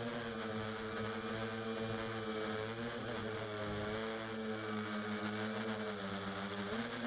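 Tricopter's three brushless motors and propellers buzzing in flight, heard from a camera mounted on the craft. The pitch wavers up and down with the throttle, sagging and rising again near the end.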